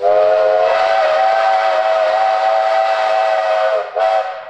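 Steam whistle of Victorian Railways steam locomotive J541: one long blast of several tones together, sliding up slightly as it opens, about four seconds long, then a brief break and a short second blast.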